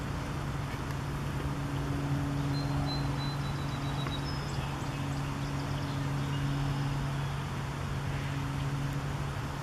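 A steady low motor hum over outdoor background noise, with a few faint high chirps in the middle.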